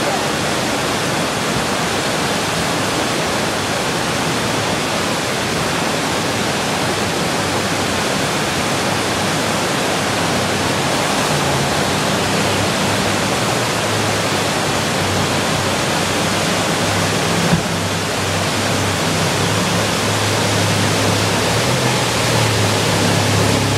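Steady roar of whitewater rapids, with the low drone of a jet boat's engine coming in about halfway through and growing louder as the boat works up through the rapids.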